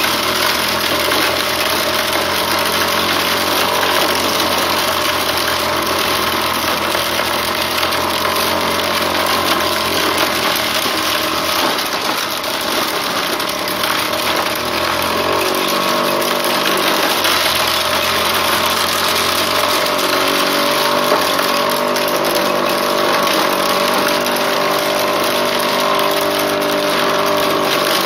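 Motor-driven homemade wooden corn sheller running steadily: a continuous engine-like drone under a dense hiss. The drone dips briefly in pitch and loudness about twelve seconds in.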